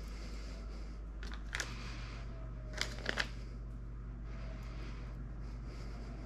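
Quiet handling sounds of a stick of butter in its paper wrapper being pinched into pieces and pressed onto sliced apples: light rustling and a few soft clicks, two pairs of them about a second apart, over a low steady hum.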